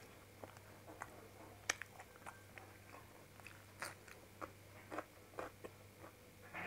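Close-up mouth sounds of a person eating by hand: chewing with irregular wet smacks and clicks, a few louder than the rest, over a faint steady low hum.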